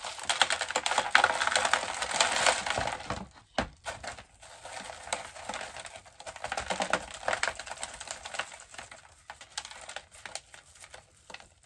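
Hands working a Monstera out of a thin clear plastic pot and crumbling chunky aroid mix of bark and perlite off its root ball, with bits falling onto a plastic tray: a dense crackling for the first few seconds, then sparser crackles.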